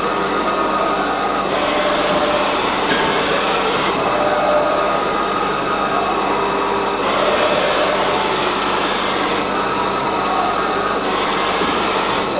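Wintec MV-40 vertical machining centre running a program with its spindle at 3000 RPM: a steady mechanical hum with several steady high tones. The mix shifts every couple of seconds.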